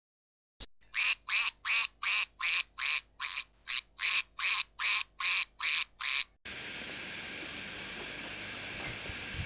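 After a short click, a run of about fourteen quick, evenly spaced duck quacks, about two or three a second, as a logo sound effect. The quacks stop about six seconds in, and a steady hiss takes over.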